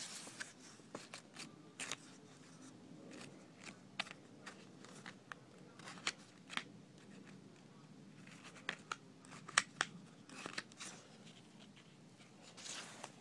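Pages of a paperback cookbook being leafed through and handled: faint, irregular paper rustles and flicks with scattered sharper snaps, the loudest a little over halfway through.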